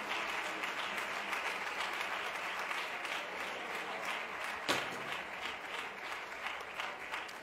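Large audience applauding, the clapping thinning into scattered separate claps near the end. One sharp knock partway through stands out above it.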